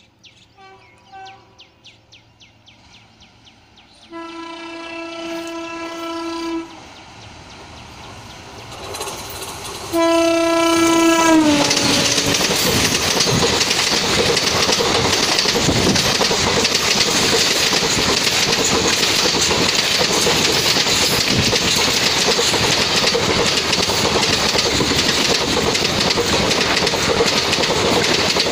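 Indian Railways electric locomotive horn sounding twice: a blast of about two and a half seconds, then a shorter one that drops in pitch as it ends. An express train then passes at speed, its wheels clattering loudly over the track.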